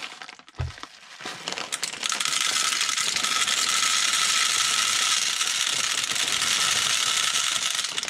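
0.25 g plastic airsoft BBs poured into the hopper of an Odin-style sidewinder speed loader. A few scattered clicks come first, then from about two seconds in a steady, dense rattle of BBs pouring in that runs until near the end.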